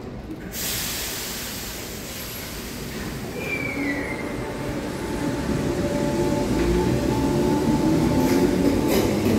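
Class 507 electric multiple unit pulling away from an underground platform, its traction motors whining and growing louder as it gathers speed, with a brief falling squeal about four seconds in.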